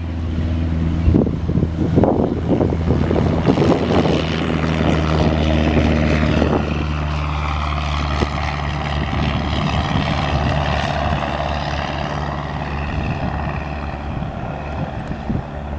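Cessna 172N Skyhawk's four-cylinder Lycoming engine and propeller at full takeoff power as the plane rolls down the runway and climbs away: a steady drone that eases slightly near the end. Wind buffets the microphone in the first few seconds.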